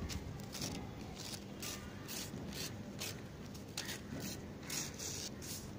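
Newspaper being torn by hand along a crease into a long strip: an irregular series of short rips, a few each second.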